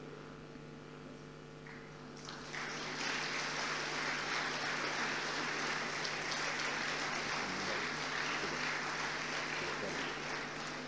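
Audience applauding, swelling sharply about two and a half seconds in and then holding steady.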